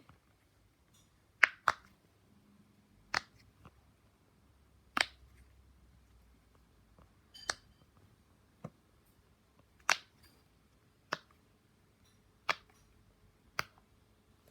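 Silicone pop-it fidget toy having its bubbles pressed one at a time: about a dozen sharp pops at uneven gaps of roughly one to two seconds.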